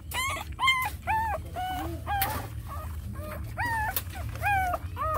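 Young puppies whimpering in a run of short, high cries that rise and fall, about two or three a second, typical of hungry puppies crying for milk.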